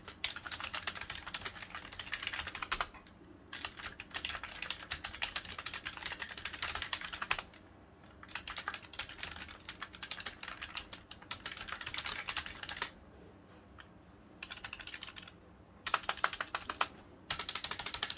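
Typing on an LGA-K3200 wired keyboard: quick runs of key clicks and keystrokes, broken by a few short pauses.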